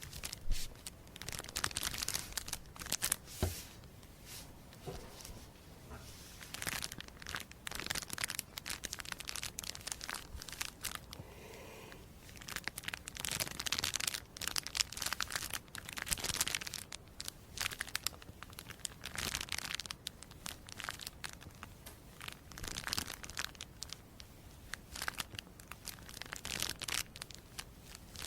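Crisp crinkling and tearing sounds, coming in bursts of a few seconds each with short pauses between.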